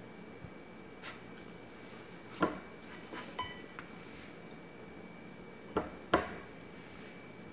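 A few short, sharp knocks and clinks of a ceramic plate on a tabletop as a banana is pushed around and dropped onto it, the loudest about two and a half and six seconds in.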